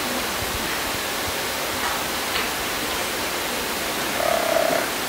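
Steady, even hiss of background noise in a pause between speech, with a brief hum-like tone about four seconds in.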